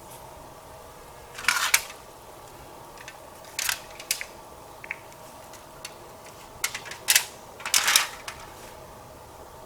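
A handful of short, sharp clicks and rustles at irregular intervals, the loudest about one and a half seconds in and near the end, like gear being handled.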